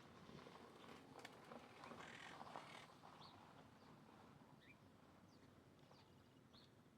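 Faint wild birds calling: a handful of short, high chirps spaced about a second apart, over a quiet outdoor background with some faint rustling and clicks in the first few seconds.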